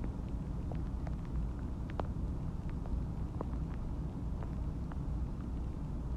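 Stomach and bowel sounds recorded close against the belly, from a digesting meal and water: a steady low rumble with small gurgling pops and clicks scattered through it, about two a second. The clearest pop comes about two seconds in.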